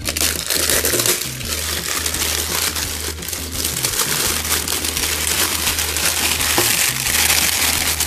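Cellophane wrap crinkling and crackling loudly as it is pulled and torn off a toy box.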